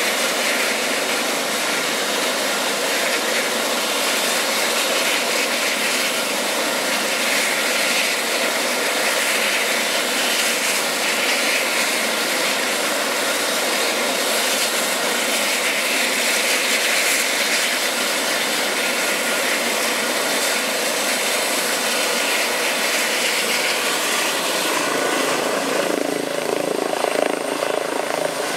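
Eurocopter EC135 air ambulance helicopter running on the ground with its main rotor turning: a steady, loud whoosh of turbines and rotor with a faint pulsing. About 25 seconds in the sound turns lower and a thin high whine rises slightly as it powers up for lift-off.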